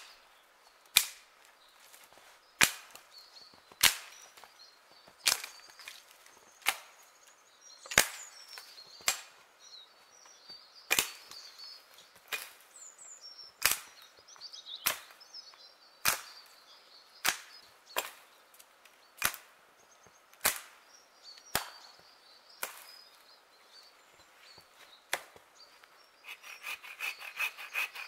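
An axe chopping into wood, single sharp strikes about once a second. Near the end the chopping gives way to quick, even hand-saw strokes.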